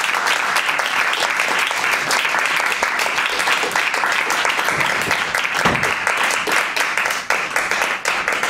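Small audience clapping steadily, with a low thump about halfway through.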